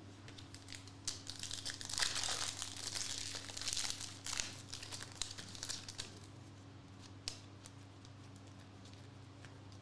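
Foil wrapper of a Contenders basketball card pack crinkling and tearing as it is opened by hand, from about one to six seconds in. After that it goes quieter, with a few soft clicks as the cards are handled.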